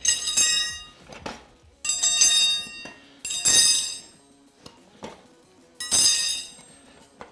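Curved steel tire irons being pulled out of a dirt-bike tire and set down. There are four ringing metallic clangs about one and a half to two seconds apart, with lighter clinks between them.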